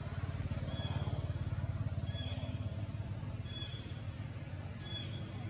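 An engine running steadily, a low even rumble throughout, with a short high chirp repeating about every second and a half.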